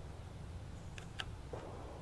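Faint ticks and light rustle of a vinyl decal being peeled from its backing paper and pressed onto a sheet-metal panel by hand, with two short ticks about a second in, over a low steady rumble.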